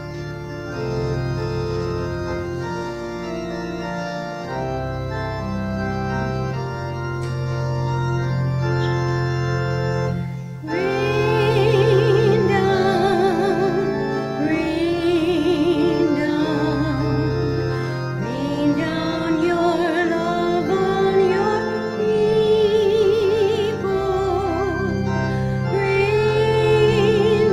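Church organ playing held chords of a hymn introduction. About ten seconds in, a solo voice with strong vibrato begins singing the hymn over the organ accompaniment.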